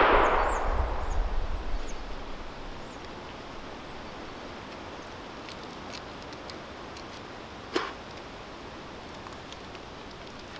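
A black-powder rifle shot, most likely the Swedish M1851 Kammerlader percussion breech-loader, its report echoing through the woods and dying away over about two seconds. Then a steady low background, with one sharp click near eight seconds in.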